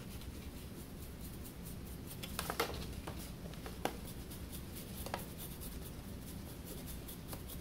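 Faint scratching and soft ticks of a small paintbrush dabbing acrylic paint onto a whittled wooden gnome, a handful of light strokes over a low steady room hum.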